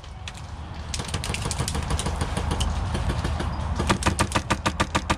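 Airsoft fire: scattered sharp clicks and cracks of shots and BB hits, then a fast, even string at about seven a second from about four seconds in, over a steady low rumble.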